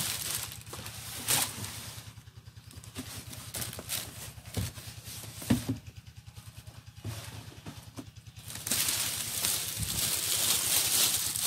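Clear plastic bag wrapped around a boxed RC car crinkling and rustling as hands handle it, with a few sharp knocks against the box and table, the crinkling growing louder and denser near the end. A low, fast pulsing hum runs underneath.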